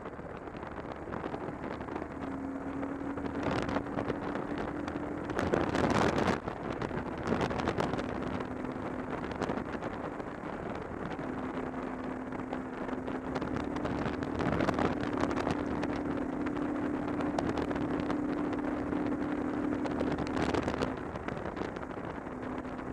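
Motorcycle engine running at road speed, its steady hum shifting a little in pitch, under wind rush on the microphone. A louder burst of wind noise comes about six seconds in.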